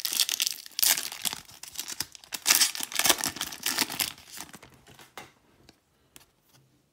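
Trading-card pack wrapper crinkling as it is handled, a dense crackle that thins out after about four and a half seconds into a few scattered clicks.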